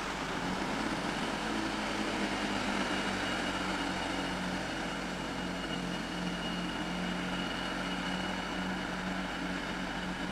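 Class 165 Turbo diesel multiple units running at a platform: a steady hum from their underfloor diesel engines, with a faint high whine above it, as one unit draws in alongside the other.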